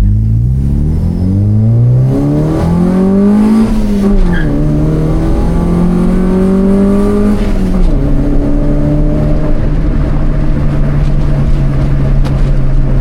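Honda Civic EG's D15 four-cylinder engine and exhaust accelerating hard, its note rising to high revs and falling sharply twice, about four and eight seconds in, as it shifts up through the gears. It then holds a steady note while cruising.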